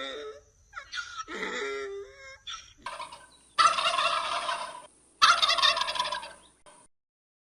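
Farm poultry calling: a run of short pitched calls, then two longer, harsh, loud calls in a row.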